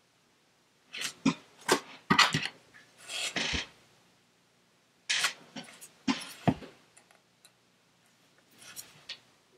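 Short rustles, scrapes and light knocks, in three clusters: about a second in, about five seconds in, and near the end.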